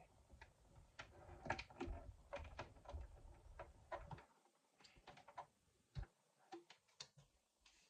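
Faint scattered clicks, knocks and handling noise as fabric is worked into position under a sewing machine's presser foot, with the machine switched off; a low rumble of handling runs through the first half.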